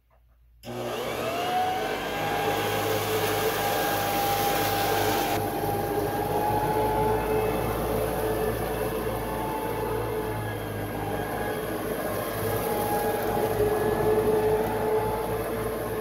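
Bissell BigGreen Commercial BGCC28 wide-area vacuum, a fan-first (direct-air) commercial upright, switched on about half a second in. Its motor whine rises quickly to speed and then runs steadily while the machine is worked over carpet, picking up shredded paper. The pitch shifts slightly from stroke to stroke, and the phone recording makes the sound a bit odd.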